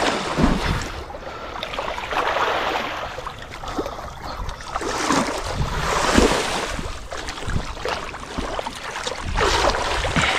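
Water sloshing and splashing in several surges, about 2, 5 and 9 seconds in, as people wade and grope by hand for fish, with wind buffeting the microphone.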